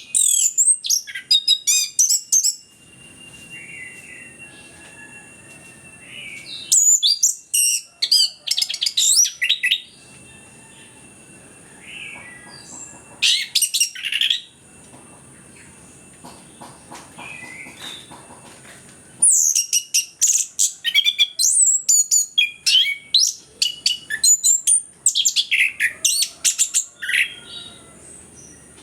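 Orange-headed thrush singing in full voice: bouts of rapid, varied high phrases separated by short pauses, with the longest bout in the second half.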